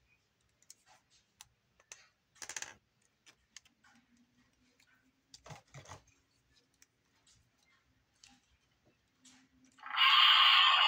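Light plastic clicks and knocks as a Godzilla action figure is turned over in the hands. Near the end, the figure's built-in sound chip starts a loud electronic roar through its small, tinny speaker.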